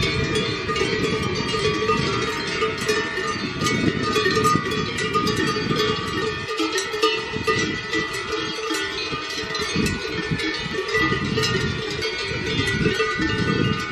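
Many cowbells ringing and clanking continuously, as from cattle grazing on the pasture below the chairlift, over a steady low rumbling noise.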